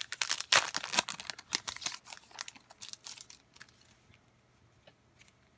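Foil wrapper of a trading card pack crinkling and crackling as it is peeled open and the cards are slid out. The crackles come thick and fast, then thin out and stop after about three seconds.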